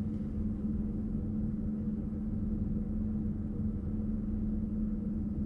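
Inside the driver's cab of an NS Sprinter Light Train (SLT) electric multiple unit: a steady low rumble with a constant hum.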